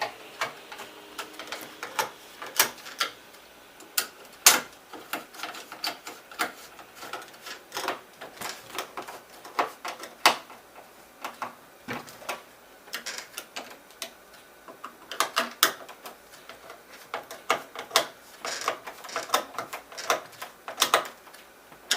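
Irregular clicks, taps and light knocks of small plastic and metal lock parts being handled and fitted together, some sharper and louder than others.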